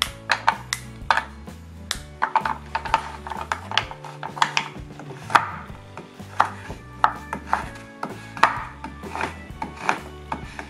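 Chef's knife chopping a dark chocolate bar on a wooden cutting board: sharp, irregular knocks of the blade against the board, a couple a second.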